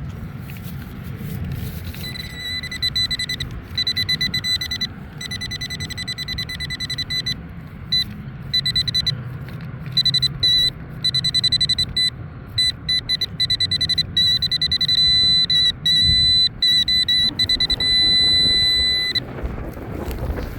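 Nokta Accupoint pinpointer beeping at one high pitch, its pulses coming faster and merging into an almost continuous tone as it closes on buried metal, then stopping near the end. Wind rumbles on the microphone underneath.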